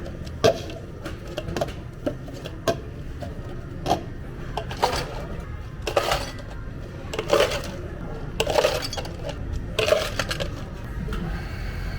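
Café counter work: clinks and clatters of cups, dishes and utensils being handled. Sharp single knocks in the first few seconds, the loudest about half a second in, then a run of longer rattling clatters about every second and a half, over a steady low hum.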